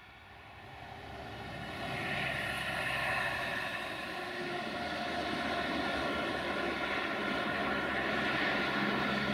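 Diesel engine of a CFR 060-DA (LDE2100) diesel-electric freight locomotive with a Sulzer engine, running as it approaches: it grows louder over the first two seconds, then holds a steady, many-toned hum.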